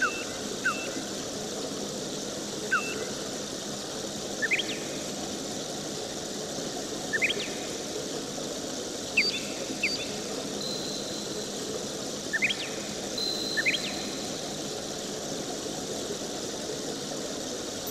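Steady mechanical hum, with short high chirps every second or two, some in quick pairs, and a brief thin high tone twice near the middle.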